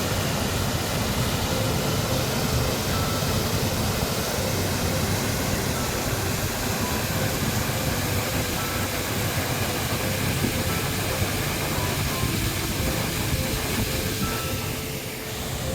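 Waterfall: a steady, dense rush of falling water that dips slightly near the end.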